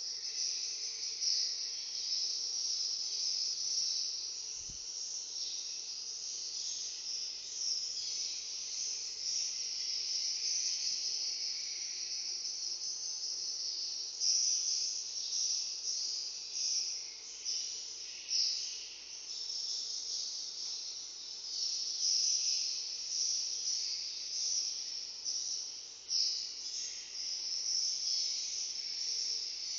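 Many swiftlets calling together: a dense, high-pitched twittering chirr that swells and fades without a break.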